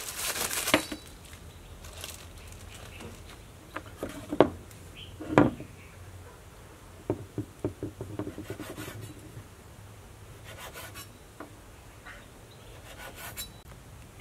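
Kitchen knife trimming the crusts off slices of white bread on a wooden cutting board: short rasping strokes through the crust and scattered knocks of the blade on the board.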